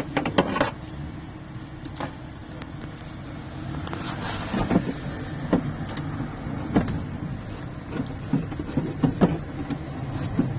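Scattered clicks and knocks of tools and metal and plastic parts being handled inside an opened car door, over a steady low hum.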